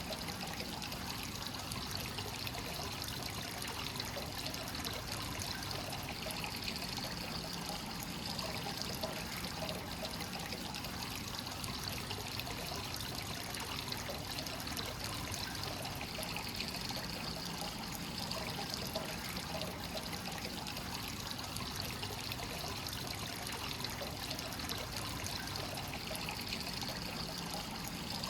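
Hot spring water from a free-flowing source pouring steadily into a bath, trickling and splashing without a break.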